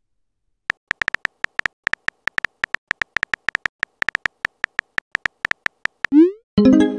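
Text-message app typing sound effect: a quick, irregular string of short keyboard clicks as a message is typed. Near the end comes a rising swoosh and a chiming tone as the message is sent.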